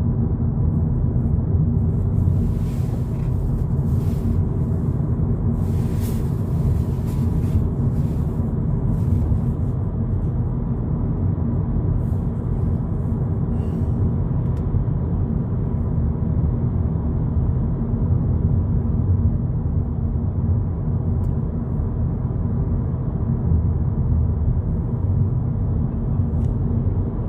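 Steady in-cabin drone of a 2022 Volkswagen Polo GTI cruising at about 68 km/h in sixth gear: a low, even rumble of road and tyre noise with the engine turning at low revs.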